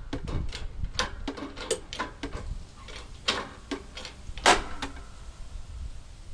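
Plastic housing of a coffee machine cracking and popping under pressure as it is crushed: a string of irregular sharp cracks and clicks, with the loudest snap about four and a half seconds in.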